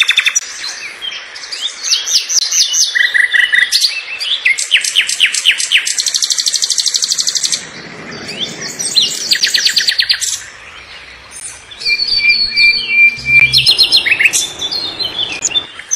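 Several different songbirds singing in turn: fast trills and rapid runs of sharp, high chirps, with one steady held whistle near the end.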